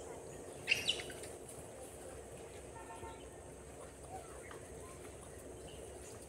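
Quiet outdoor ambience, broken a little under a second in by two quick, sharp high-pitched animal calls, then a few faint chirps.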